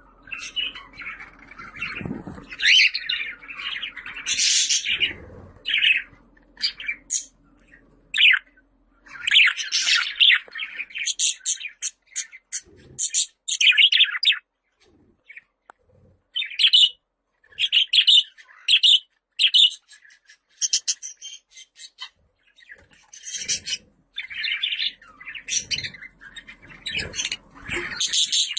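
Budgerigars chattering: irregular runs of short chirps and warbling notes, broken by brief pauses.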